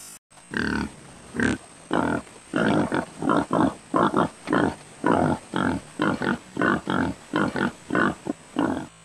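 A wild pig grunting in a fast run of short, loud grunts, two or three a second.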